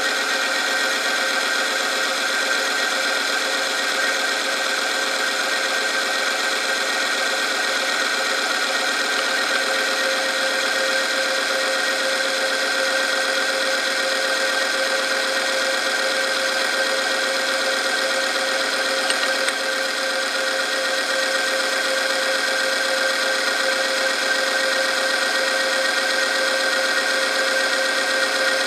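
Oil friction-test machine running: its electric motor turns a steel roller against a loaded test sample in hot engine oil, giving a steady mechanical whine with metal-on-metal rubbing under load.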